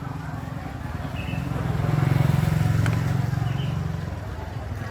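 A motorbike passing close by: its engine hum grows louder to a peak about two seconds in, then fades away.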